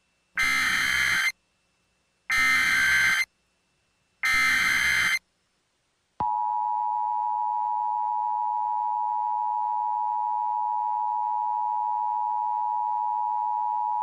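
Emergency Alert System tones: three short bursts of SAME header data, each just under a second long and about two seconds apart. About six seconds in, the long steady two-tone attention signal starts and holds for about eight seconds. Together they announce the start of an emergency alert message.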